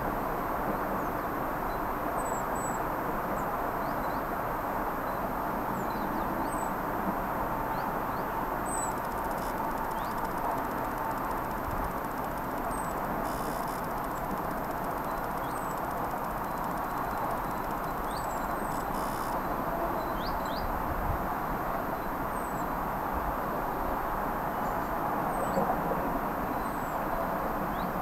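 Small birds giving short, high chirps now and then, scattered through the whole stretch, over a steady low rushing background noise.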